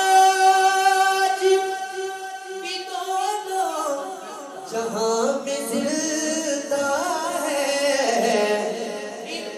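A man singing devotional verse unaccompanied into a handheld microphone. He holds one long, steady note for about three and a half seconds, then drops into lower, ornamented phrases.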